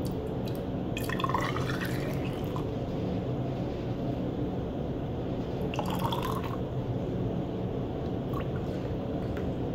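Water pouring and dripping from a cut-open 2-liter plastic soda bottle into a tall plastic graduated cylinder, the water drained off to measure the bottle's volume between marks. Twice, about a second in and again about six seconds in, a brief rising pitch is heard as the stream fills the cylinder, over a steady low hum.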